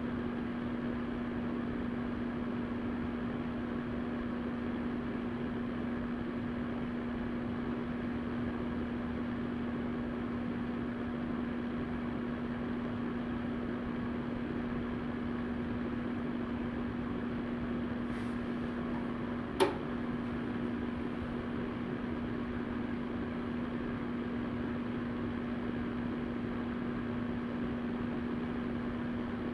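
Vornado VMH300 electric fan heater running: a steady rush of blown air over a constant low motor hum. A single sharp click sounds about two-thirds of the way in.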